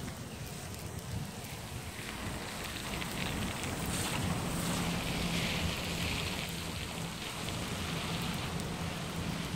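Rain falling on wet pavement under a low rolling rumble of thunder, which swells a few seconds in and then eases. A steady low hum joins about three seconds in.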